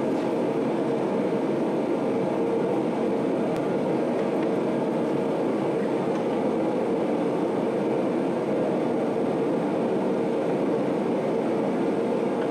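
Forge running with a loud, steady roar that starts and cuts off abruptly.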